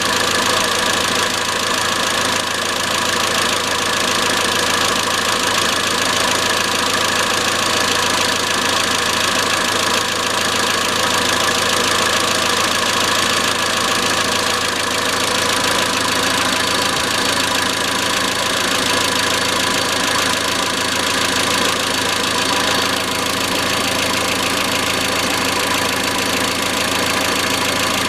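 Iran Khodro Samand's 1.6-litre 16-valve TU5JP4 four-cylinder petrol engine idling steadily, with a metallic knock running through it.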